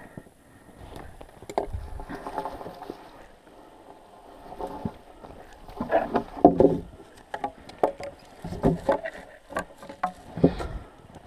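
Irregular knocks and scrapes of cut birch logs being handled, with rustling of bare brush between them. The loudest knocks come about six seconds in and again near the end.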